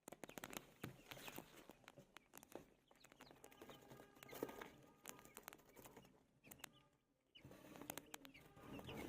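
Newborn chicks faintly peeping, with many small clicks and taps from the chicks moving and pecking. The sound drops out briefly about seven seconds in.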